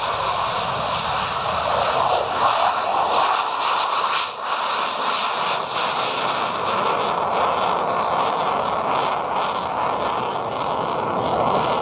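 Mitsubishi F-2B fighter's General Electric F110 turbofan at takeoff power as the jet lifts off and climbs away. The engine gives a loud, steady jet roar with a ragged crackle through it.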